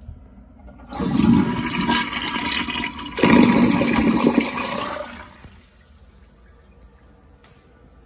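A 20-inch tall gravity-flush toilet, 1.28 gallons per flush, flushing. Water rushes in about a second in, surges again about three seconds in, and dies away a little after five seconds.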